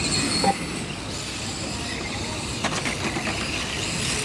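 Electric radio-controlled Mini touring cars with brushless motors running laps, with a steady high motor whine and tyre noise. A few sharp clicks come about two and a half seconds in.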